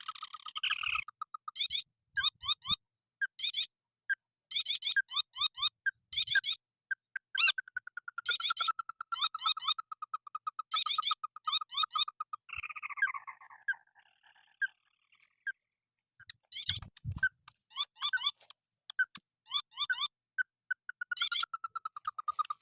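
Paddy-field rails, the white-breasted waterhen and the crake called burung tikusan, calling over and over in quick clucking series, with a long trill about a third of the way in and a falling call just past the middle. A brief low thump comes about three-quarters of the way through.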